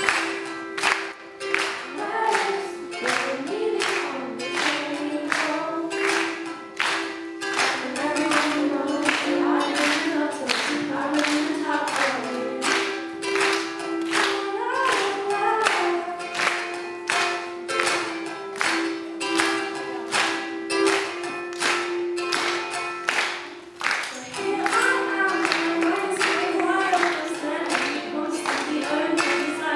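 A woman singing live to her own ukulele, strummed in a steady, even rhythm.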